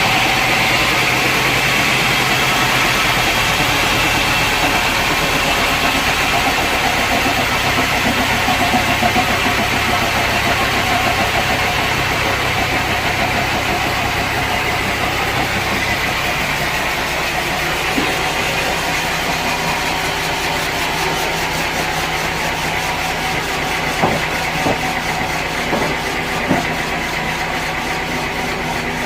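Sawmill machinery running steadily: a continuous motor-driven mechanical noise that eases slightly over the first half, with a few sharp knocks near the end.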